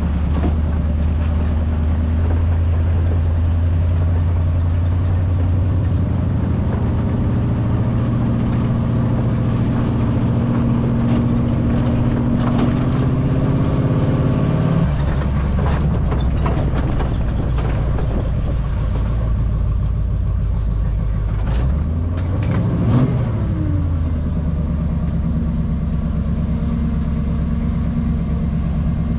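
4x4 wrecker's engine running under load as it tows a buggy on its hook, the note climbing slowly, then dropping sharply about halfway through, with a brief rise and fall about three quarters of the way in. A few knocks and rattles sound over it.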